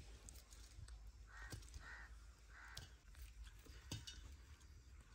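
Three faint bird calls in quick succession, starting a little over a second in, with a few light clicks of potatoes being handled.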